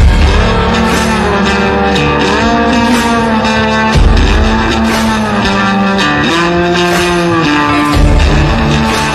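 Instrumental rock music with guitar lines bending in pitch and heavy bass hits about every four seconds.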